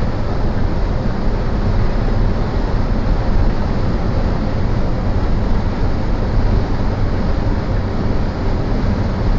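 Steady road and engine noise of a car cruising on a motorway, heard inside the cabin: an even, low rumble of tyres and engine with no sudden events.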